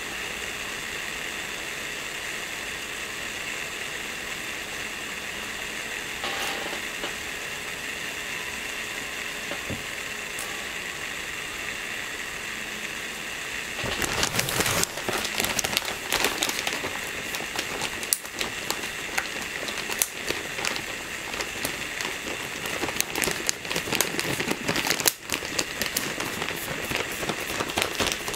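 Croissant dough cooking inside a closed waffle maker: a steady hiss, then about halfway through a louder, dense crackling sizzle like rain as the butter in the dough fries against the hot plates.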